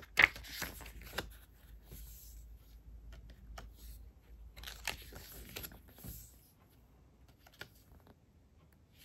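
Paper pages of an album photo book being turned and handled: crisp rustles and crinkles in a few short bursts, the sharpest just after the start, with scattered light ticks of fingers on paper in between.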